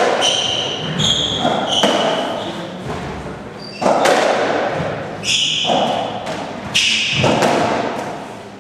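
Racketball rally: the ball struck by racquets and thudding off the court walls every one to two seconds, each hit ringing in the hall. Between hits, shoes squeak in short high squeals on the wooden floor.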